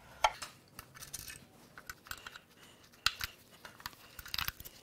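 Scattered light metallic clicks and clinks of an open-end wrench being fitted to and working the fuel line fittings on an engine's fuel rail and high-pressure fuel pump, with sharper clicks about a quarter second in, about three seconds in and near the end.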